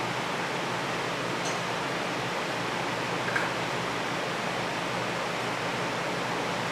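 Steady background hiss, with one faint click a little past halfway.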